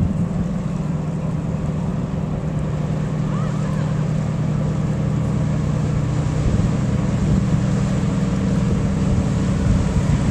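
Bulk freighter's diesel engines running with a steady low drone as the ship's stern passes close by.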